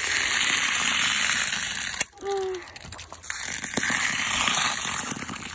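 Water from a hose gushing into a rubber feed pan of grain, soaking horse feed, the stream splashing on the grain. The flow breaks off for a moment about two seconds in, then runs on.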